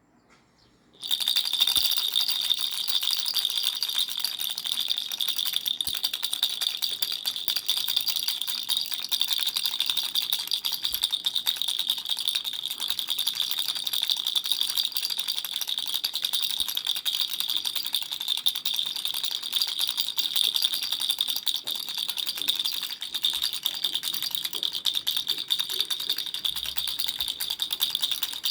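Baby's toy rattle shaken fast and continuously, starting about a second in, with a high ringing tone running through the rattling.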